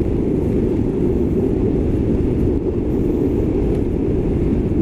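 Steady low rush of wind over the rider's camera microphone, with road noise, as an electric sportbike is ridden at full throttle at about 32 km/h; no engine note stands out.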